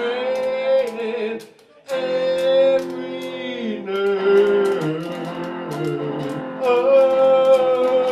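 Live music: a man sings long, held notes that bend at their ends over an electric guitar, while a washboard keeps a steady rhythm of sharp clicks. All of it stops for a moment about a second and a half in.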